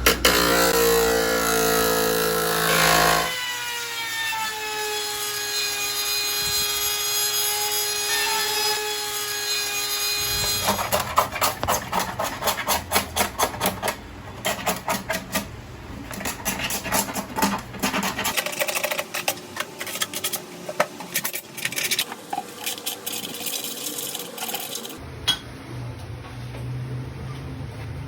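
Small power tool running with a steady whine, its pitch dipping and settling as it bears on the work. It gives way to rapid repeated grinding or scraping strokes, several a second, with a few abrupt changes in sound.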